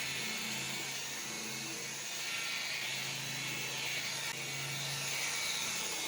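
Rotary buffer running steadily, its pad working compound over automotive paint: a continuous motor whine with a hiss from the pad on the panel.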